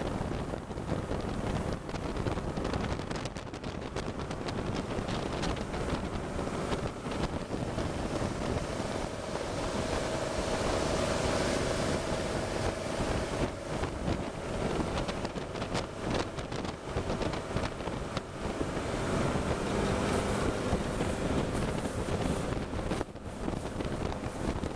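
A jet boat running at speed on a river: wind buffeting the microphone and water rushing and spraying off the hull, with the boat's engine running steadily underneath.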